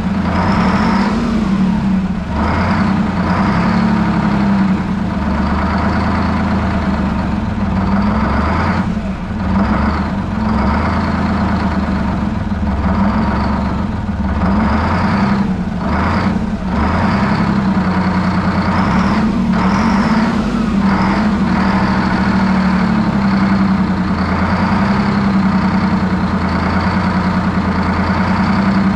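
Detroit Diesel 12V71TT V12 two-stroke diesel engine running steadily at a fast idle, with a constant deep hum and a high whine wavering above it.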